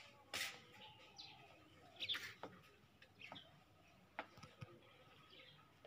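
Faint bird chirps: a few short, scattered calls, with some light clicks in between.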